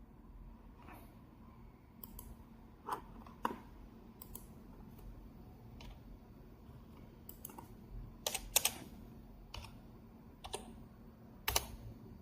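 Computer keyboard keystrokes and clicks, sparse and irregular, with the loudest cluster a little past the middle and one near the end, over a faint steady hum.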